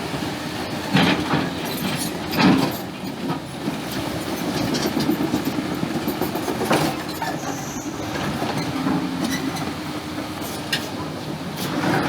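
Excavator engine running steadily as it digs stones, with several sharp knocks and clatter of rock against the steel bucket.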